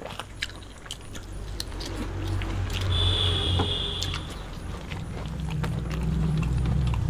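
Hand-eating sounds: chewing and tearing of paratha flatbread, with frequent small clicks and taps of fingers and food on steel plates. A low rumble swells beneath it about two seconds in and again near the end, and a thin, steady high tone sounds for about a second midway.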